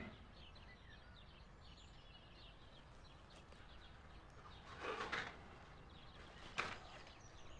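Birds chirping faintly in the background of an otherwise quiet room, with two brief soft sounds about five and six and a half seconds in.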